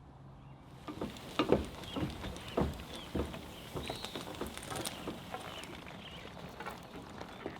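Irregular knocks, taps and clatter of hardware being handled and fitted, as a hose reel is mounted beside a faucet, with the loudest knocks in the first few seconds. Faint chirps sound in the background.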